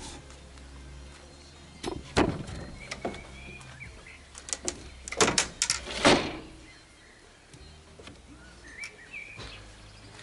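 Knocks and rattles from a wooden-framed wire cage trap as a cat is put inside and moves about in it, with a quick run of knocks about five to six seconds in, the loudest near the end of that run. Birds chirp briefly twice.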